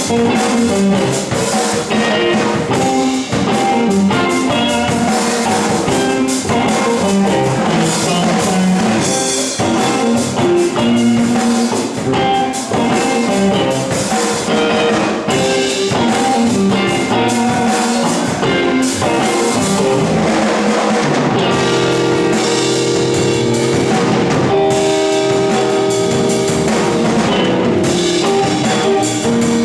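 Live blues trio playing an instrumental passage: a Stratocaster-style electric guitar over electric bass and a drum kit. The guitar holds longer sustained notes in the second half.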